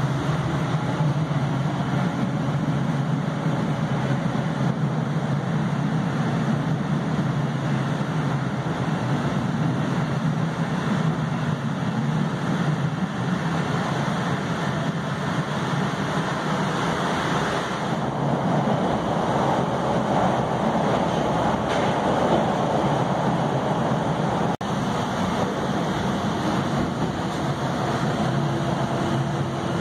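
Inside an MBTA Red Line 1900-series subway car under way: steady running rumble of the wheels on the rails and the car's motors. A faint steady whine comes in near the end.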